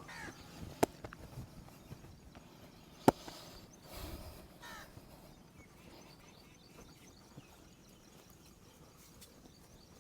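A crow cawing twice in the background, once right at the start and again about four and a half seconds in, with two sharp clicks, the louder one about three seconds in.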